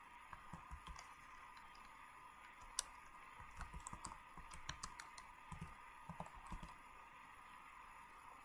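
Faint, irregular clicks and light taps, bunched in the middle, with one sharper click about three seconds in, over a steady low hiss and faint hum.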